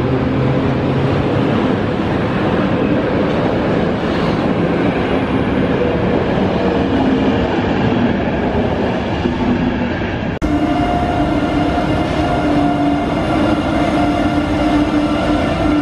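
PKP Intercity passenger coaches passing at speed, with loud, steady wheel-on-rail noise. About ten seconds in, it cuts to a Koleje Mazowieckie electric locomotive hauling double-deck coaches past, with a steady hum over the wheel noise.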